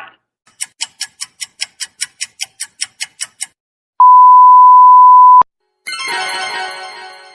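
Three editing sound effects in a row: a quick run of about fifteen sharp ticks, about five a second; then a loud, steady, single-pitched censor beep lasting about a second and a half that cuts off sharply; then a bright shimmering chord of many tones that slowly fades.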